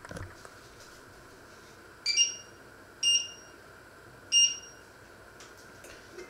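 Touch controls of a glass-top electric hob beeping three times: short high beeps about a second apart as the control panel is pressed.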